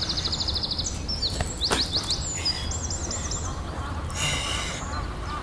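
Small songbirds singing in short phrases: a quick trill, then sweeping high whistled notes and a run of rapid chirps, over a steady low outdoor rumble.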